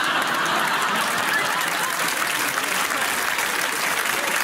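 Studio audience applauding, a steady dense patter of many hands clapping, in response to a comedy punchline.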